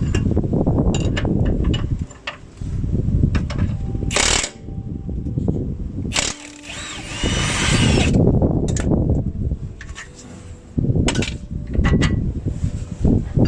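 Power tool running in several bursts of one to three seconds, with short gaps between them.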